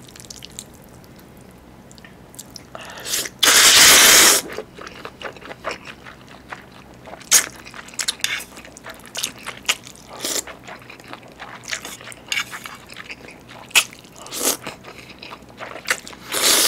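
A person eating chewy jjolmyeon noodles close to the microphone: a long, loud slurp about three seconds in, then chewing with many short wet smacks and clicks, and another long slurp near the end.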